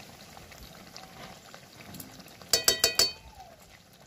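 A metal spoon clinks against a metal vessel four times in quick succession about two and a half seconds in, each strike ringing briefly, over a faint simmer from the chicken cooking in the wok.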